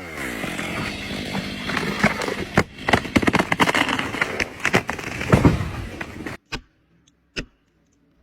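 Chainsaw running with many sharp cracks and snaps of wood over it, cutting off abruptly about six seconds in; two separate sharp knocks follow.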